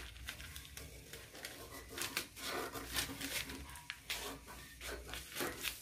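Scissors cutting out a thin paper sewing pattern: an irregular run of crisp snips and paper rustling.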